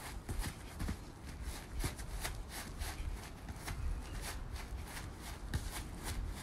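Quick, irregular light taps of football boots touching a football and stepping on artificial turf during ball-mastery footwork, a few touches a second, over a low rumble.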